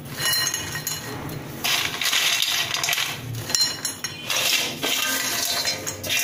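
Crisp fried besan pakoda sticks rattling and scraping against a stainless-steel bowl and a ceramic plate as they are scooped out by hand and tipped onto the plate, in several bouts with short pauses and light clinks.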